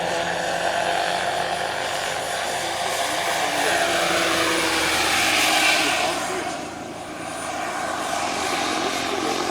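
Turbine-powered 1/4-scale Ecureuil AS350 model helicopter (Jakadofsky 5000 Pro turbine) in flight: a steady turbine whine with rotor noise. It grows loudest about five to six seconds in as the model passes, dips briefly, then rises again.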